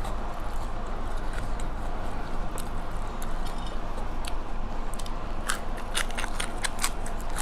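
Close-up chewing and crunching of food in the mouth, with many small crisp crunches and a quick run of sharper ones about five to seven seconds in, over a steady low hum.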